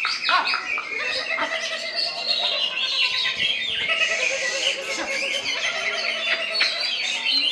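Cucak ijo (greater green leafbird) singing a rapid, unbroken run of chirps, whistles and quick rising and falling notes.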